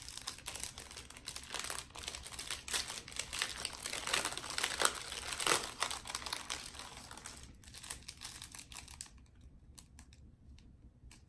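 Thin clear plastic bags of diamond-painting gems crinkling as they are handled and opened, dense at first and dropping to a few faint rustles about seven seconds in.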